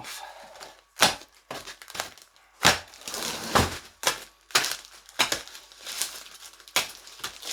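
A blunt knife hacking and sawing through the plastic packaging seal on a box of bumper plates: plastic crinkling and rustling, broken by about a dozen sharp cracks and snaps at an uneven pace, roughly two a second.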